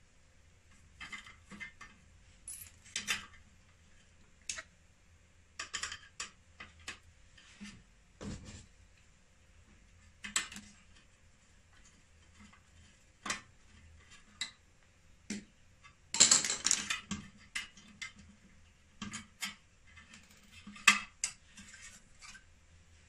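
Hand tools clinking and tapping against the sheet-metal chassis and parts of an inverter, a screwdriver and pliers at work on screws and wiring: scattered irregular clicks, with a denser, louder rattle about two thirds of the way through.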